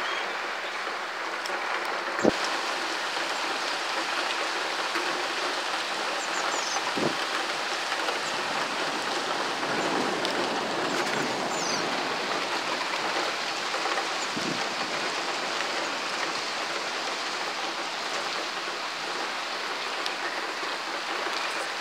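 Heavy storm rain pouring steadily, an even hiss. A single sharp knock comes about two seconds in, with a couple of fainter thumps later.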